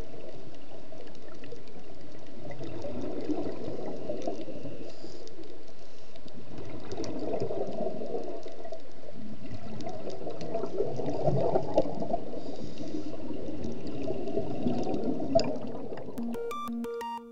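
Underwater sound of a scuba diver's regulator: exhaled bubbles rushing and gurgling, swelling every few seconds with each breath, with a few sharp clicks. Near the end it fades and electronic music begins.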